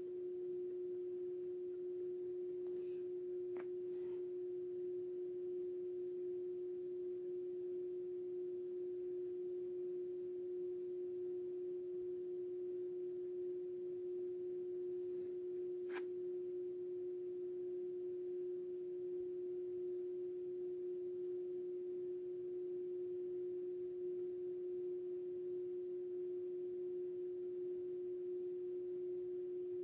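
A steady, unwavering single-pitch tone, a mid-low hum-like whine that holds the same pitch throughout, with a few faint clicks about three and a half and four seconds in and again around sixteen seconds.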